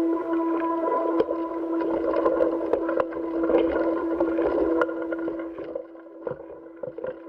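Steady machine hum from the International Space Station footage's soundtrack: one constant tone with a few overtones. Over it run a rattling haze and scattered clicks, which thin out after about five seconds while the hum carries on.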